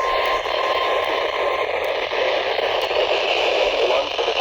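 NOAA Weather Radio receiver on a weak, distant station, giving out mostly hiss and static. Under it a faint steady alarm tone fades away about a second and a half in.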